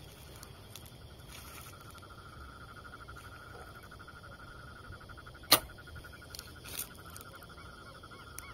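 A Mathews No Cam HTR compound bow shooting once, about five and a half seconds in: a single sharp snap of the string on release, the loudest sound here, with a fainter noise about a second later. Behind it runs a steady, fast-pulsing chirring trill.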